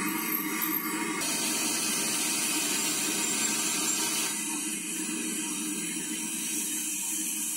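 Hot oil sizzling steadily in a large wok as pieces of tofu are deep-fried. The sizzle gets louder and brighter about a second in.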